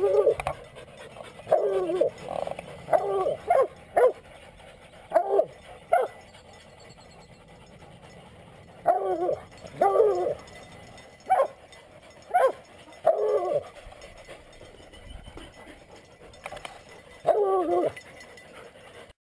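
Young coonhounds barking treed, heads up at quarry raised in a tree: a dozen or so short barks and bawls, singly or in quick pairs, with pauses of a few seconds between them.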